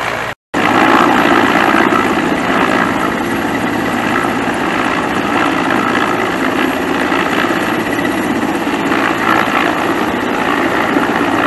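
A large military transport helicopter flying with an underslung load: a loud, steady rotor and turbine noise. The sound cuts out completely for a moment just under half a second in.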